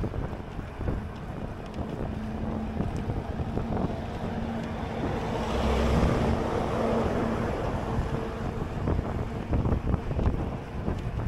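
Wind buffeting the microphone over a low rumble, swelling louder for a couple of seconds around the middle, with a faint steady hum underneath for part of it.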